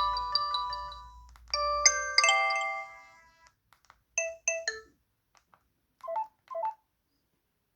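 LG A180 mobile phone's built-in tones playing through its small speaker. A beeping ringtone melody fades out, a short chiming melody starts about a second and a half in and dies away, then come three quick beeps ending on a lower one, and two short double-tone blips near the end.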